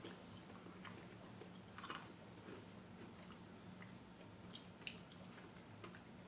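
Faint chewing of crunchy dried green peas: a few soft, scattered crunches over a low steady hum.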